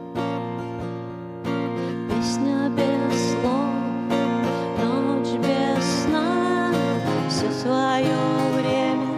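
Music: an acoustic guitar strumming chords, with a sliding, wavering melody line coming in about two seconds in.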